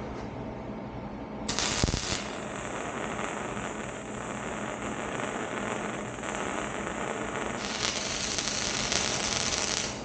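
Electric welding arc crackling steadily as two pieces of steel exhaust pipe are welded together. It strikes about a second and a half in, loudest at the start, and stops sharply near the end.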